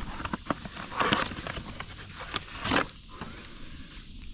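Handling noises as a new oil filter is picked up and readied for filling: scattered light clicks and knocks, with two brief rustles, one about a second in and one near three seconds.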